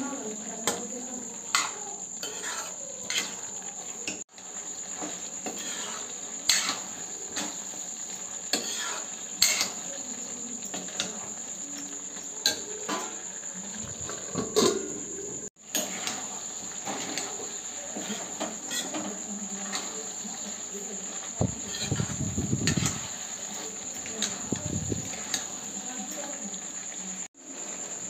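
Steel spatula stirring and clinking against a steel kadhai of potato and bean curry, in sharp irregular clicks, over a steady high chirping of crickets.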